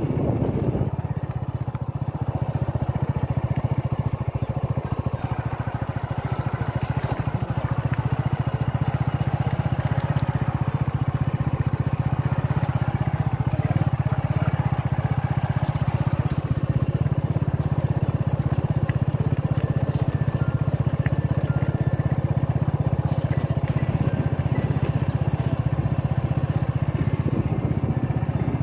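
Motorcycle engine running at a steady speed while riding along a dirt track, a continuous low drone.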